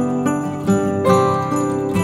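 Background music: a melody of sustained, pitched notes, each struck about half a second after the last.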